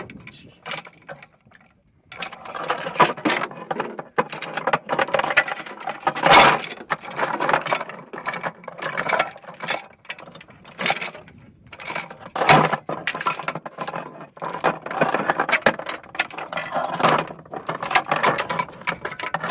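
Linked belt of machine-gun cartridges rattling and clinking against a metal ammunition box as it is laid in, a near-continuous metallic clatter with a few sharper clacks. It pauses briefly about a second and a half in.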